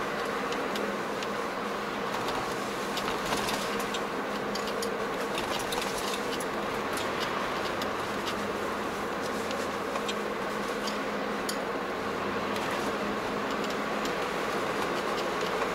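Steady road and engine noise heard inside a moving car's cabin, a constant hum and rush with many light clicks and rattles scattered through it.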